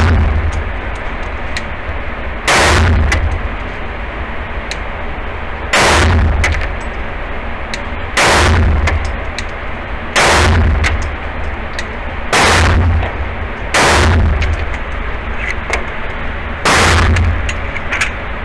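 Semi-automatic pistol fired in slow, deliberate single shots at an indoor range: seven sharp reports spaced about two to three seconds apart, each ringing off briefly in the range's hard walls.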